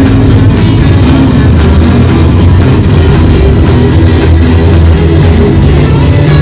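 Loud live amplified rock music from a double-neck electric guitar, with heavy, sustained low notes and drums.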